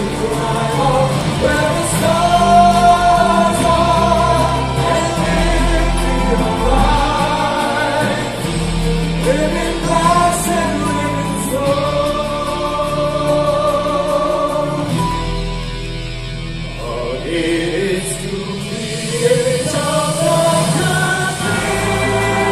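Live musical-theatre singing: voices in chorus over an amplified band, heard from the auditorium, with a sung melody that rises and falls over a steady bass line.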